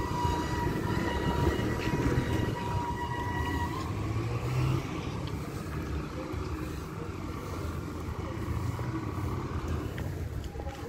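Outdoor street ambience: a steady low rumble, with a steady high whine that stops about four seconds in.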